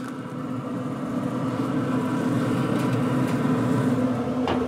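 Pellet grill's fan running with a steady whirring hum. A short knock sounds near the end.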